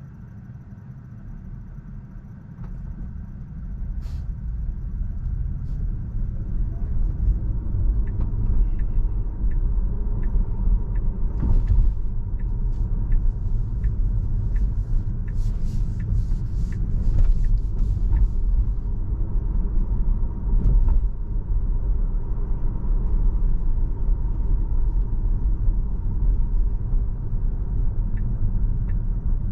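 Road and tyre rumble inside a Tesla's cabin as it drives, growing louder about three seconds in and then holding steady, with faint evenly spaced ticks partway through.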